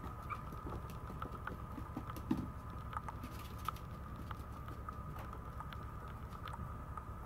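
Maltese puppy's paws and claws pattering and ticking on a vinyl floor and a plastic pet toilet tray: scattered light taps, the loudest about two seconds in. A steady high-pitched hum runs underneath.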